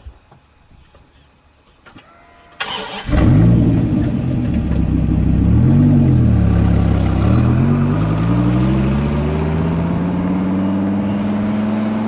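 Dodge Viper's V10 engine starting about two and a half seconds in, catching with a sudden jump in loudness. It is revved up and back down once, then rises steadily in pitch as the car accelerates.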